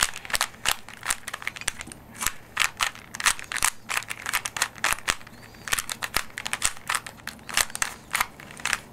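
Rubik's cube being scrambled by hand: its layers are turned quickly, giving a rapid, uneven run of plastic clicks and snaps, several a second.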